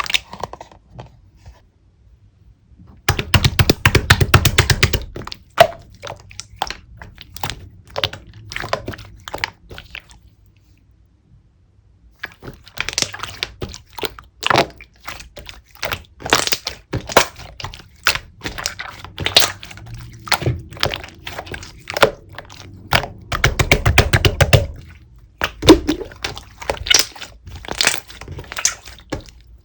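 Clear slime being pressed and squished by hand, giving many small clicking and popping sounds, with two spells of dense, rapid crackling, one about three seconds in and one near the end, and a short pause in the middle.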